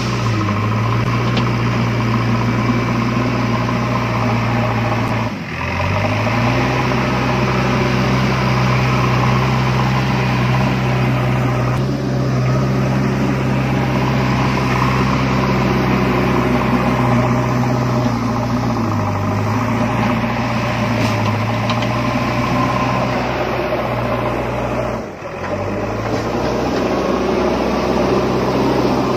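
Steady engine drone like a heavy vehicle idling, laid over the toy play as a sound effect. It sags briefly and picks up again three times.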